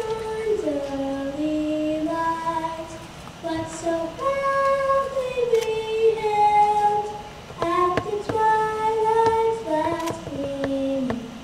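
A woman singing the national anthem solo, holding long notes.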